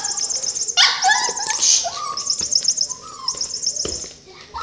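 Chihuahua yipping and barking excitedly, most in the first two seconds, while jumping up for a toy. Short bursts of high warbling chirps come and go over it.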